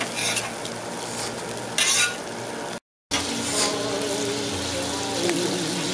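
Food sizzling on a steel flat-top gas griddle, with a metal spatula scraping across the cooking surface a couple of times. The sound cuts out for a moment a little under three seconds in, then bacon strips sizzle steadily.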